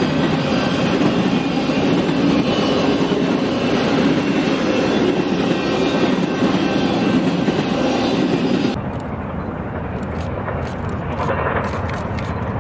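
Streamlined passenger cars of a steam excursion train rolling past on the rails, a loud steady rumble of wheels with some clickety-clack. About nine seconds in it cuts to a quieter, more distant rumble.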